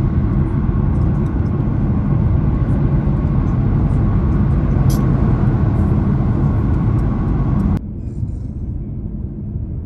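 Steady road and wind noise of a car driving at freeway speed. It drops sharply near the end to a quieter road hum.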